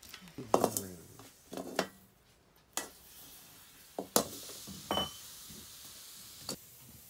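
Metal karahi clanking and scraping as it is handled and set on a stove: a series of separate knocks and clinks, one with a short metallic ring about five seconds in. A faint steady hiss sits behind them from about three seconds in.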